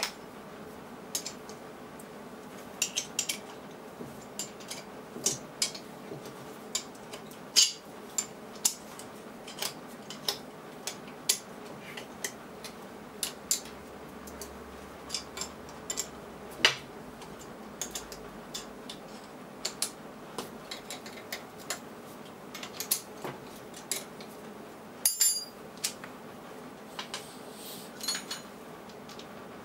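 Metal parts and hand tools clinking and tapping on a steel workbench while an industrial vibrator is being taken apart: irregular sharp metallic clicks, a few every couple of seconds, over a steady background hum. About 25 seconds in there is a short rattle.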